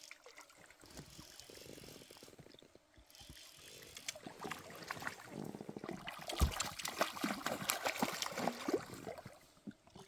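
Water trickling and splashing close to the microphone, faint at first and louder from about four seconds in, with many small crackles and a brief thump about six and a half seconds in.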